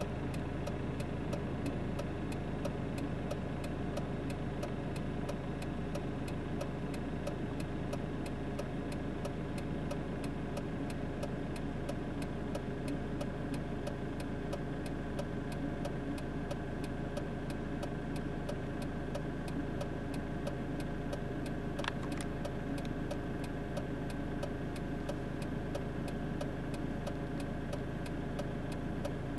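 Steady engine and tyre hum of a car driving along a highway, heard from inside the car. A faint regular ticking of about three clicks a second runs underneath, and there is a brief sharp click about three quarters of the way through.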